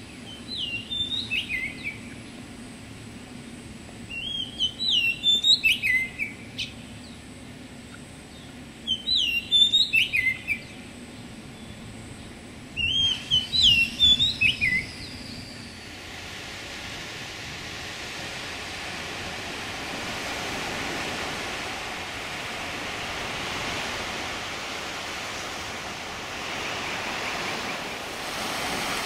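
A songbird sings four short phrases of clear whistled notes, each falling in pitch, about four seconds apart. After the last phrase, a steady rushing noise slowly builds up.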